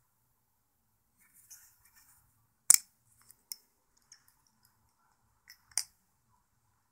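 Microtech Tachyon 2 butterfly knife being handled: a light scraping, then two sharp metal clicks about three seconds apart with a few softer ticks between.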